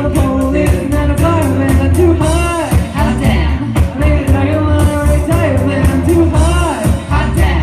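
Pop music playing loud: a sung vocal line over a steady bass and drum beat.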